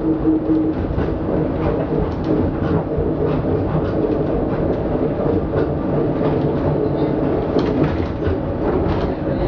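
Cabin noise of a Translohr rubber-tyred tram running along its line: a steady rumble with motor and inverter hum tones, one of which fades out under a second in. Scattered light knocks and rattles run through it.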